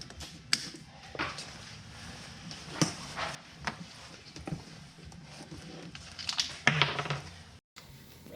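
Irregular clicks and knocks of things being handled, with a busier cluster of knocks over a low hum about six to seven seconds in; the sound drops out abruptly for a moment near the end.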